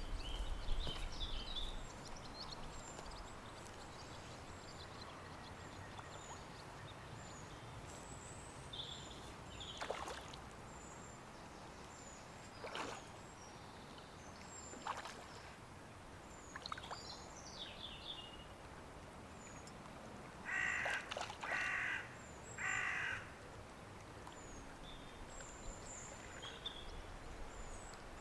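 Birdsong by a lake: small birds chirping high and repeatedly, and a crow cawing three times about three-quarters of the way through, with a few sharp clicks in between.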